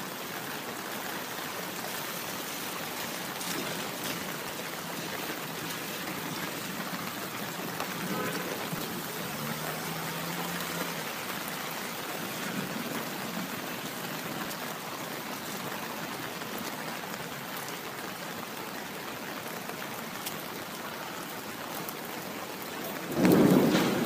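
Steady rain falling, an even hiss of many drops. About a second before the end comes a sudden, much louder burst.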